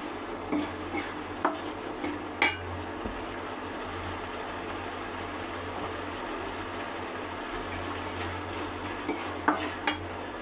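A metal spoon knocking and scraping against a cooking pot a few times, with a pair of clinks near the end, over a steady hiss.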